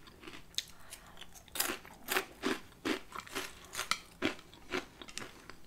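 Close-miked chewing of crunchy Flamin' Hot Cheetos mixed into spicy ramen: a run of sharp crunches, about two a second, starting a second and a half in.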